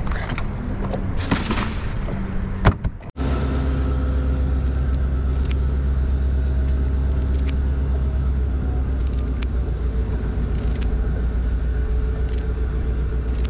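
Steady low engine hum, as of a motor idling, with faint sharp clicks every second or two as scissors snip apart a spiny sea urchin for bait. Before that, about three seconds of fish-handling noise with a brief hiss and a sharp knock.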